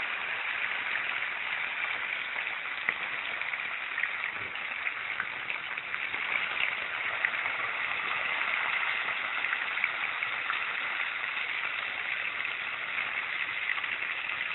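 Food deep-frying in hot oil in a small pan: a steady sizzle with many small pops and crackles scattered through it.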